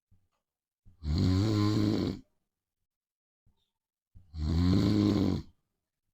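A man snoring loudly: two long, deep snores about three seconds apart, each lasting a little over a second.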